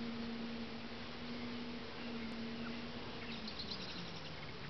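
A flying insect, bee- or fly-sized, buzzing steadily close by, its pitch dropping slightly about three and a half seconds in. A brief crisp crackling near the same moment fits the tortoise biting into lettuce leaves.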